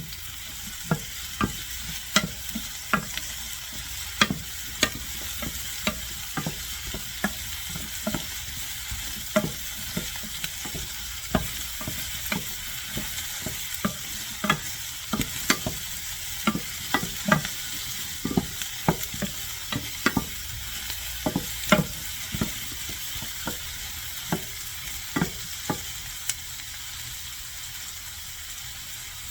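Diced eggplant, zucchini and onion frying in olive oil in a pan over medium-high heat with a steady sizzle, while a utensil stirs them, knocking against the pan about once or twice a second. The stirring knocks thin out near the end.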